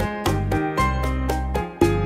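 Background music with a steady beat of about four strokes a second under a bass line.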